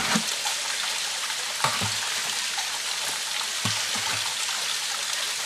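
Water running and splashing steadily, with a few soft low knocks near two and four seconds in.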